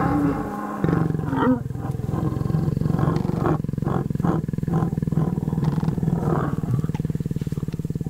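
Mating lions growling: a long, low, continuous growl that starts about a second in, given as the male lion bites at the lioness's neck during copulation.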